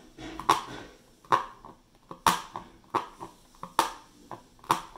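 Felting needle punching wool fiber through a stretched canvas: a sharp pop at each stab, about six of them, a little under a second apart, as the fibers are latched through to the back of the canvas.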